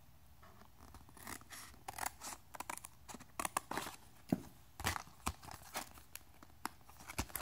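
Scissors cutting through the cardboard backing of a microSD card retail package: a quick run of sharp snips and paper crackles. Near the end the card stock is pulled and peeled apart.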